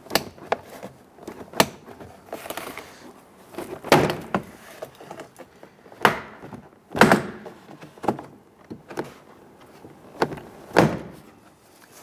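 Plastic push-pin clips of a Ford Explorer door trim panel snapping loose one after another as the panel is pried away from the door. About half a dozen sharp pops are spread out, with the plastic panel rustling and knocking between them.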